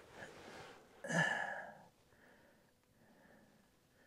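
A man's short sigh about a second in, then quiet breathing.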